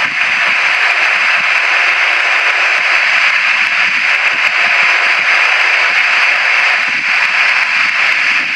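Boeing 737-800's CFM56 turbofan engines running as the airliner taxis, a steady rushing jet noise with a faint high whine.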